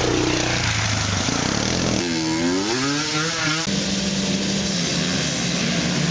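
Off-road engines revving. The engine note changes suddenly about two seconds in, when an engine revs up and down several times. Just before four seconds it changes again to a steadier, lower engine note.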